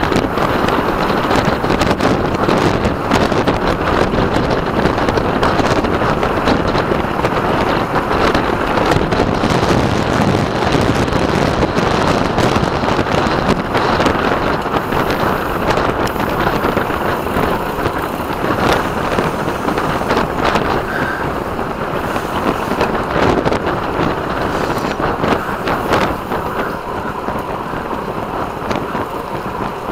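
Wind noise on a racing road bike's camera microphone: a steady, loud rush of air at riding speed, with scattered knocks.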